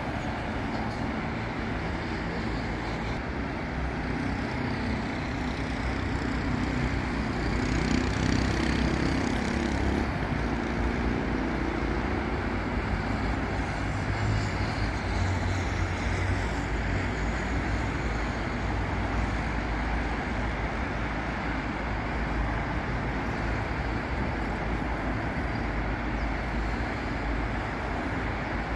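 Steady road traffic on a busy city avenue, with cars and buses passing continuously. Louder, heavier vehicles go by about a quarter of the way in and again near the middle.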